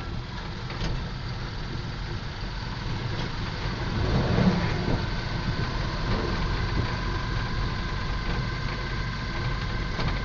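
Steady engine and road rumble heard from inside a moving vehicle's cabin, with a faint steady whine above it.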